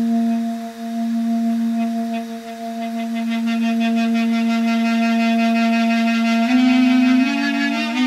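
Duduk holding one long low note, then stepping up in pitch twice near the end, as part of a jazz-style tune.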